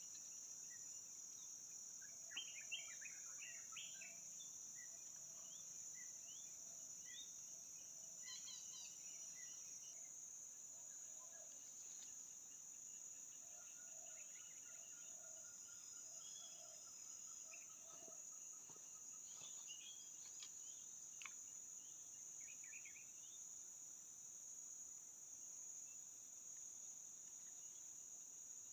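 Faint, steady, high-pitched insect drone, with scattered faint bird chirps and two small clicks about two and a half seconds in.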